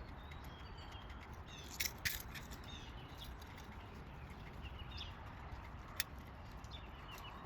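Birds chirping here and there over a steady low background, with a few sharp clicks: two close together about two seconds in and one near six seconds.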